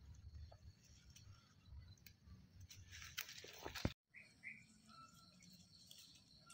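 Quiet outdoor ambience with faint bird chirps. About three seconds in, a brief louder rustle, likely the shrub's branches as the baby macaque climbs, cuts off abruptly just before the four-second mark.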